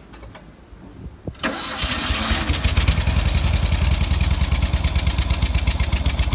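Prepared 1968 Fiat 595's two-cylinder engine starting about a second and a half in, catching at once and settling into a steady idle with rapid, even firing pulses.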